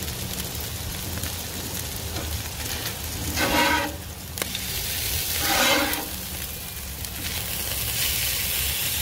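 Burger patties sizzling on a steel griddle top, with a metal spatula scraping across the griddle twice, at about three and a half and five and a half seconds in.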